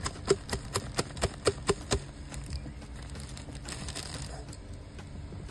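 Plastic spice shaker bottle shaken over a pan of spaghetti, dispensing dried oregano: a quick run of about ten sharp taps in the first two seconds, then it stops.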